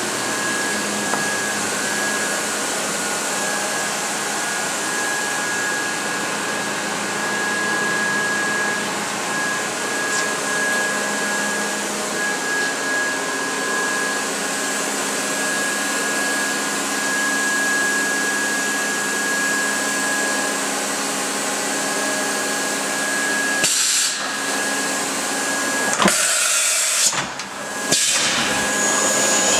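Matsuura RA1 CNC vertical machining center powered up and running, a steady whirring hiss with a thin high whine and a low hum from its pumps and fans. Near the end the sound drops out briefly twice, with a couple of knocks, and the hum shifts lower.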